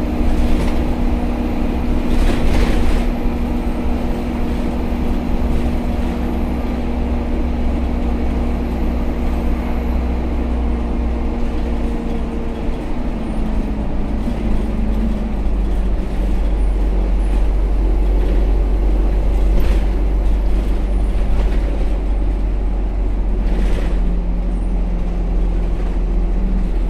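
Inside an ADL Dart SLF single-deck bus under way: the engine drones low and steady under a steady whine from the radiator cooling fans, which shifts in pitch about halfway through. A few short sharp noises stand out, one a couple of seconds in and two near the end.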